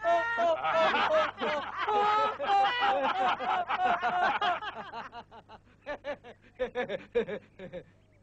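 People laughing loudly in rhythmic ha-ha pulses that thin out into scattered chuckles over the last few seconds.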